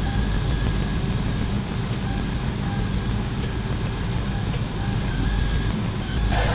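Heavy diesel engine running steadily with a low rumble and a faint high whine that drifts in pitch.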